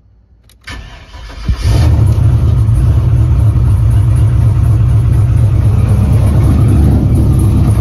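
Chevrolet pickup truck's engine cranked by the starter for about a second, catching and starting, then running steadily.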